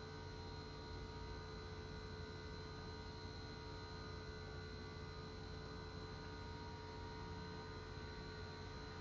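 Steady electrical hum with several faint constant tones over low background noise. Nothing starts or stops.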